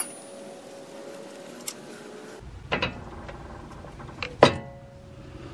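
Wrench on a steel ball joint nut: a click at the start, then a few sharp metallic knocks, the loudest about four and a half seconds in with a short ring.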